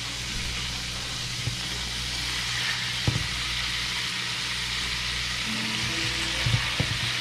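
Butter and oil with minced garlic sizzling in a stainless steel frying pan, the sizzle growing louder as two thick needlefish (aha) steaks are laid into the hot fat, with a short knock about three seconds in and two more near the end as the steaks go in.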